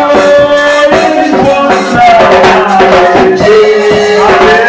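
A live church worship song continuing with long held sung notes over band accompaniment and steady percussion.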